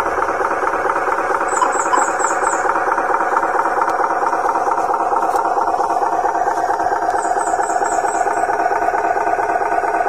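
Radio-controlled scale truck's electric motor and gearbox running steadily, a continuous whine with a rattle.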